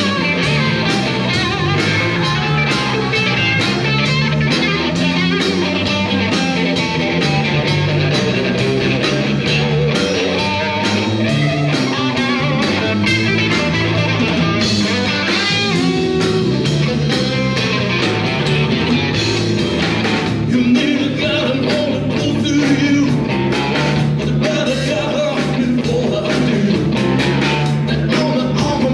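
Live blues-rock band playing: electric guitar over bass guitar and drum kit.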